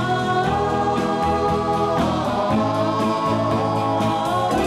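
Jingle music with singing voices, held chords that change about every second or two.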